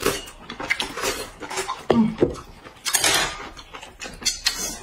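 People eating noodle soup: short hissing slurps of noodles and broth, with chewing and a few light clicks of chopsticks against the bowls.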